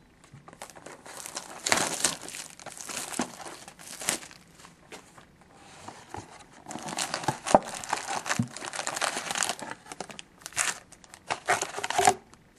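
Plastic wrapping being torn and crumpled as a box of 2011-12 Contenders hockey cards is opened and emptied of its packs. It comes as irregular crinkling bursts, with a quieter spell in the middle.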